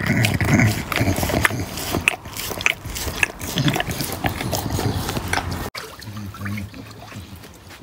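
An English bulldog chewing and crunching a raw duck bone, with wet smacking and loud snorting breaths through its short nose. After a sudden cut near the end, quieter water sloshing as the dog stands in a paddling pool.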